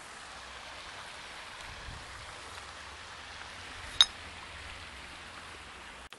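Steady rush of flowing stream water, an even hiss, with one sharp click about four seconds in.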